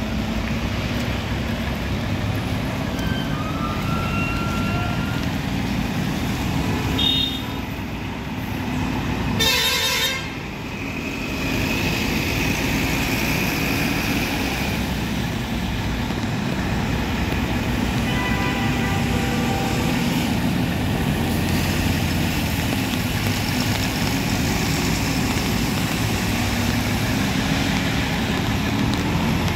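Heavy Volvo truck's diesel engine running steadily as it crawls past with an oversized load. A vehicle horn gives a short toot about seven seconds in and a louder blast of about a second shortly after.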